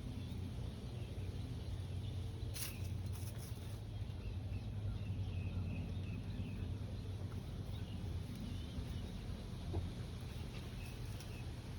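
Outdoor ambience with a steady low rumble and faint, scattered short bird chirps. A single sharp click comes about two and a half seconds in.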